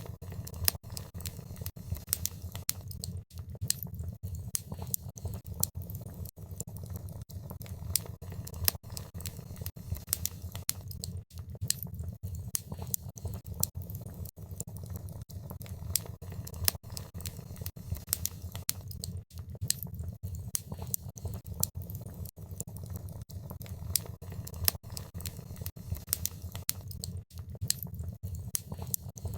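Wood fire in a fireplace crackling: dense, irregular pops and snaps over a steady low rumble of the burning fire.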